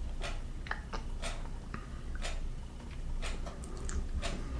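Short sharp ticks, roughly one or two a second and not quite even, over a low steady hum.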